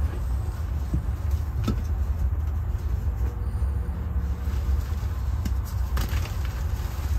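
A steady low background rumble, with faint soft crunching and pattering of powdery gym chalk being squeezed and crumbled in the hands; a couple of slightly clearer crumbles come about a second and a half in and again around six seconds.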